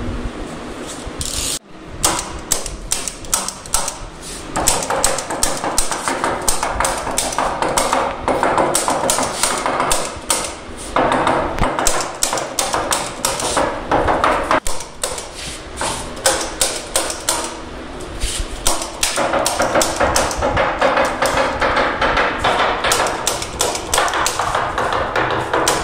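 Hand-held manual staple gun firing again and again in quick succession, a sharp clack with each staple driven through snooker cloth into the wooden rail.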